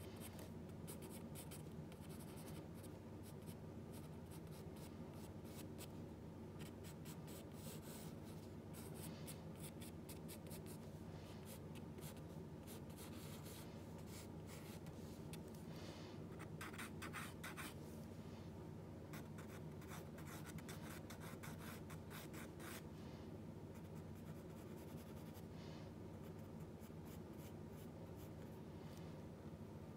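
Pencil sketching on drawing paper: faint, irregular scratching and rubbing strokes, over a steady low hum.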